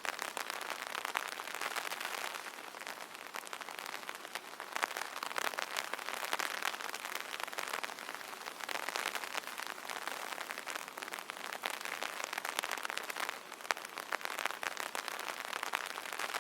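Rain pattering on an umbrella canopy: a dense, steady hiss of many small drop hits that swells and eases every few seconds.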